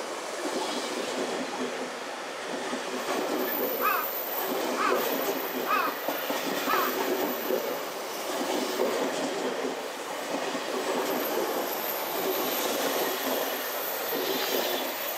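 JR Central 383-series 'Shinano' limited express electric train running past alongside the platform: a steady rolling rumble of wheels on rail. A few short, high wheel squeals come through in the middle.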